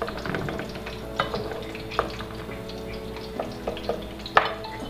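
Wooden spoon stirring chicken pieces in a sizzling tomato and garlic sauce in an aluminium pot, with a few sharp knocks of the spoon against the pot, the loudest near the end.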